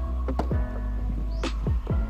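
Background music with a steady low bass, held tones and a few quick falling swoops.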